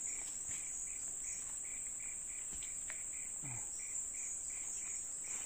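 Insects calling: a steady high-pitched drone with a softer chirp repeating about three times a second, and a few faint clicks.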